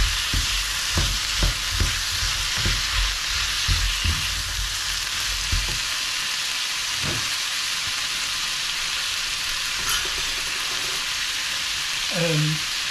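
Chopped vegetables and chickpeas sizzling steadily in a frying pan. For about the first six seconds a wooden spatula stirs them, knocking and scraping against the pan; after that only the sizzle goes on.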